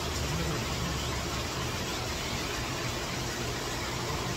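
Steady rushing noise of heavy rain and a fast, rain-swollen river.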